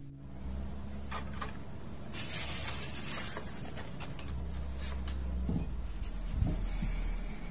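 Hand handling on a tabletop: a brief rustle, like a sheet of paper, and a few light knocks as a twisted-wire tree is handled and set down, over a low steady hum.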